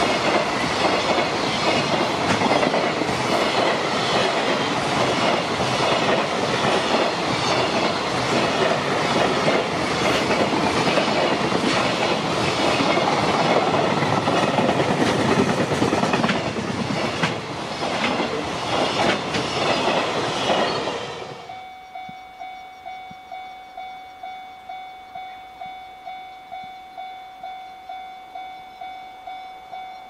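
Container wagons of a freight train passing close by, the wheels clattering over rail joints in a quick, even rhythm. The train noise cuts off suddenly about two-thirds through. A Japanese level-crossing alarm follows, ringing a steady tone in pulses about once a second.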